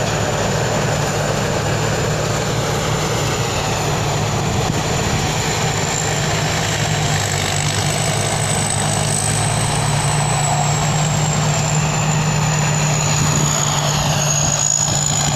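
Rice combine harvester's engine running steadily, a constant low hum, with a thin high whine above it that drifts slightly up and back down in pitch.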